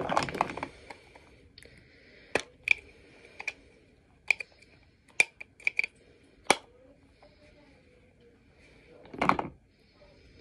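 Makeup being handled: a brief rustle at the start, then a string of about ten sharp plastic clicks and taps as a plastic powder compact is opened and handled, and another short rustle near the end as the powder puff is taken out.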